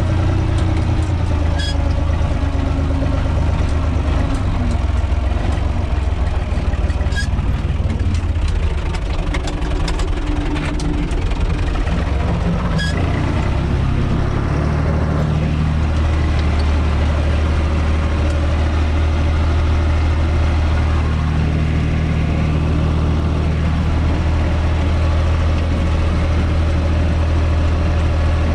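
UTB 445 tractor's diesel engine running steadily, heard from inside the cab. A few sharp clanks come in the first half, and about halfway through the engine note changes and settles into an even hum.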